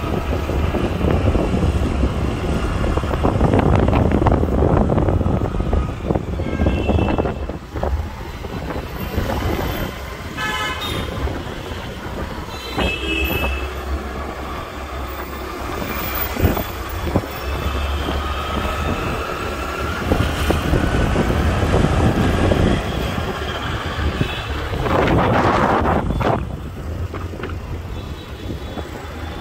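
Riding a motorbike through city traffic: steady engine, tyre and wind rumble on the microphone, with vehicle horns honking several times, clearest about ten and thirteen seconds in, and a louder passing rush near the end.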